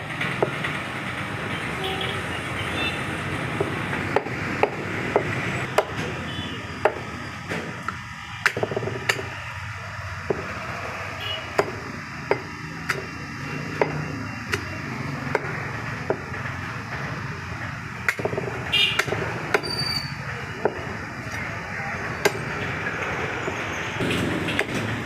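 Heavy cleaver chopping lamb heads on a wooden stump block: a long run of sharp, irregular chops, roughly one or two a second, over steady background noise.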